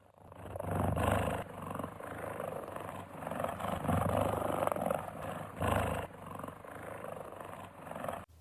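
An animal calling with rough, noisy growls that swell and fade several times.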